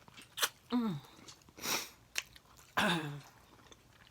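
Close-miked eating sounds: wet mouth clicks and smacks while chewing, a short hissing draw of air, and two brief falling 'ooh'/'mm' sounds of appreciation, about a second in and again near three seconds.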